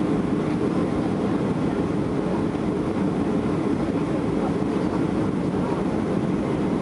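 Steady cabin noise inside a Boeing 737-800 on final approach: an even, low rumble of airflow and its CFM56 engines, with no distinct events.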